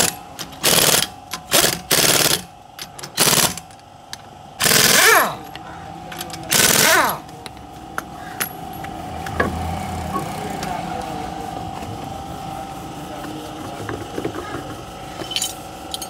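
Pneumatic impact wrench undoing the wheel's lug nuts, rattling in short bursts, about seven in the first seven seconds. After that a steady hum goes on with a few light clicks.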